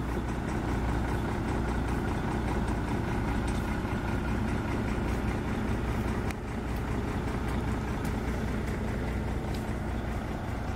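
Engine of a heavy all-terrain vehicle on low-pressure tyres running steadily at low revs as it crawls forward, an even low drone with a brief dip about six seconds in.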